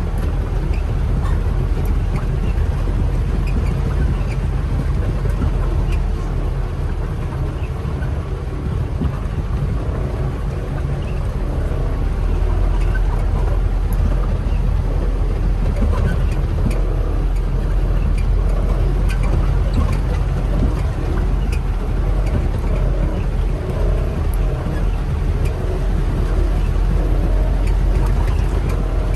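Radio-controlled model trucks and dozer working: a steady, low engine-like drone with scattered small clicks and knocks.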